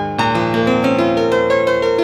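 Software piano sound from the 'Everyone Piano' program, played note by note on a computer keyboard: a quick melodic run of notes over held lower notes.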